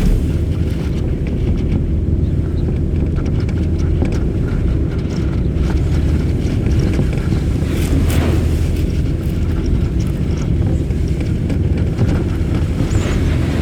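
Ferry's engine droning steadily under a rush of wind, with wind noise on the microphone; a brief louder hissing surge comes about eight seconds in and another near the end.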